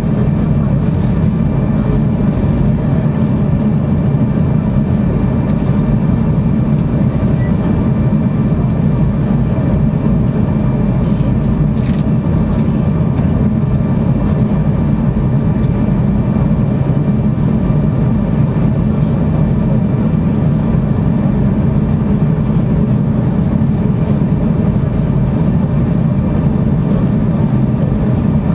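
Steady drone of a Boeing Jetfoil's gas turbines and waterjet propulsion heard inside the passenger cabin while under way at speed, with a faint steady whine above the low hum.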